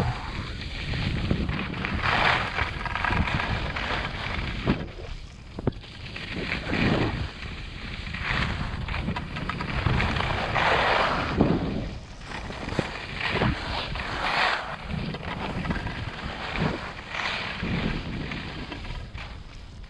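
Wind rushing over the camera microphone during a fast run down a snow-covered piste, with edges scraping and hissing through the snow in swells every second or two as the turns are made.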